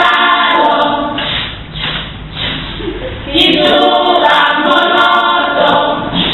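A group of voices singing unaccompanied: a Tongan children's song about brushing teeth, in two phrases with a short, quieter pause between them.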